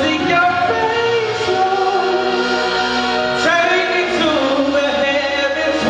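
A man singing a gospel song into a microphone over accompanying music, with long held notes that step up and down in pitch.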